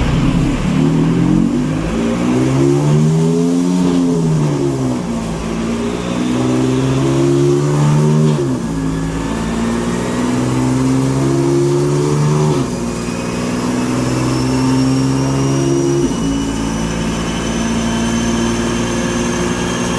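BMW M4's twin-turbo straight-six run hard on a chassis dyno. The revs rise and fall once, then climb in three stretches, each ending in a sudden drop in pitch like an upshift. A thin whine climbs steadily in pitch through the second half.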